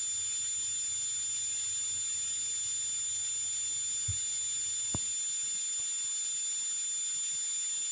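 Chopped beef and cheese sizzling steadily on a hot griddle, under a constant high-pitched electrical whine. Two soft taps come about four and five seconds in.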